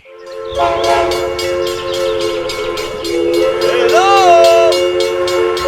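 Train horn sounding a held chord of several notes over rhythmic wheel clatter as a train goes by, starting about half a second in. A short rising-then-falling tone cuts in about four seconds in.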